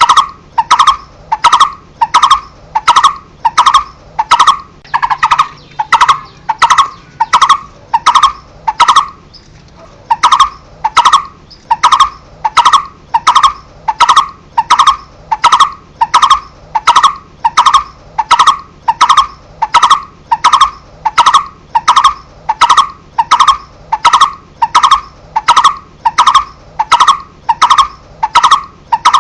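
Barbet (cu rốc) calling: a loud, monotonous series of short 'tuk' notes repeated about one and a half to two times a second, with a brief break about nine seconds in. Each note has a sharp, clicky onset.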